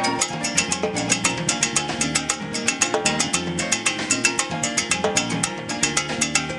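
Live band playing Latin dance music, a quick steady percussion beat under pitched instruments.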